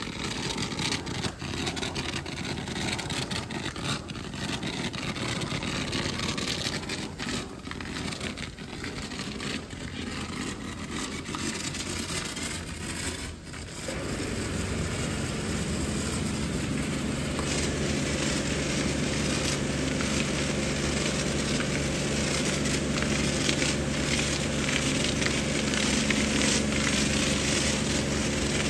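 Hose spray gun spraying water and foam onto a car's engine bay and front bumper, a hissing, splattering spray. About halfway through, a steady machine hum comes in under the spray.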